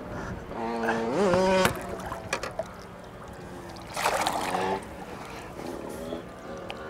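A hooked threadfin splashing in the water beside the boat as it is grabbed by hand, with the loudest burst of splashing about four seconds in. Short wordless exclamations from the angler come before and after it.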